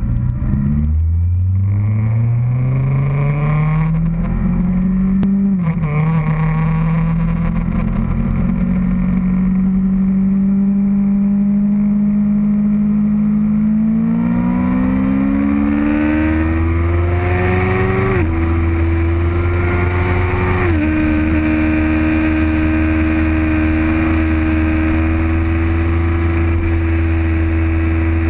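Motorcycle engine accelerating away through the gears: its pitch rises, drops at each of three upshifts, and then holds steady at cruising speed.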